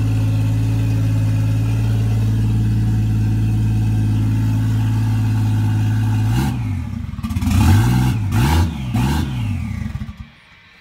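Toyota 1JZ-GTE VVTi turbocharged straight-six idling steadily through a Kakimoto Racing Full Mega N1 exhaust, then blipped three times, the pitch rising and falling with each rev. The sound drops off sharply near the end.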